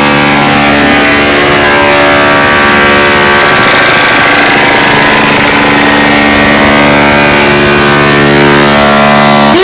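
One loud, steady buzzing tone with many even overtones, played through a large DJ sound-box rig of bass cabinets and horn speakers. It holds at one pitch and cuts off near the end.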